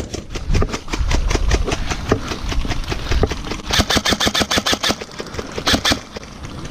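Airsoft electric guns firing full-auto bursts in a rapid clatter of about ten shots a second, with the loudest burst about four seconds in and a short one near the end.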